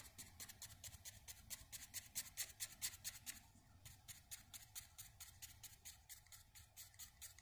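A paintbrush dabbing and scrubbing paint onto a canvas in quick, even strokes, several a second, stopping near the end.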